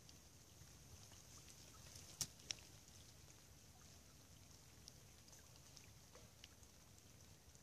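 Near silence: faint outdoor hush with scattered tiny ticks, and two sharper clicks about two seconds in, a fraction of a second apart.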